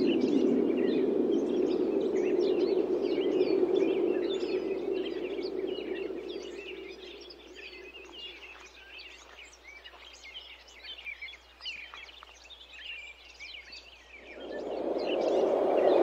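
Wind blowing in a gust that dies down after about six seconds and swells again near the end, with many small birds chirping throughout.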